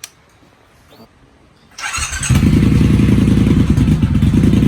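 First startup of a 2020 Triumph Bobber's 1200 cc parallel-twin through a newly fitted British Customs turnout exhaust. A brief crank about two seconds in, then the engine catches and settles into a loud, steady idle.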